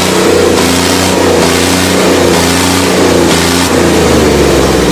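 Tractor engine sound running loudly and revving in uneven surges.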